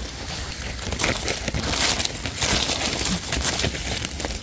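Dry leaf litter rustling and crackling in a few spells, loudest through the middle, as mushrooms are picked from the forest floor.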